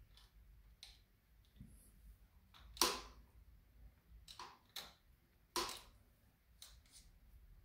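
Separate sharp metal clicks and taps of a hand tool working the bolts of a Triumph Bonneville's engine side cover, about seven in all, the two loudest about three and five and a half seconds in.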